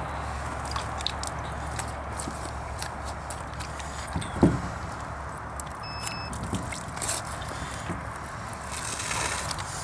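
Knife work on a snapping turtle carcass: scattered small clicks and wet handling noises as a boning knife cuts and a hand pulls meat from the leg inside the shell, with one thump about four and a half seconds in. A steady low rumble sits underneath.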